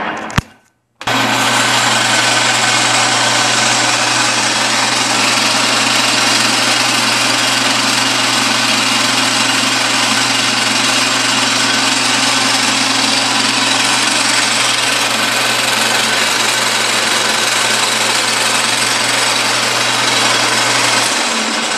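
Lodge & Shipley metal lathe running under power from its Dayton 2 HP single-phase electric motor: a steady mechanical whir over a low, constant electrical hum, starting about a second in after a brief silence.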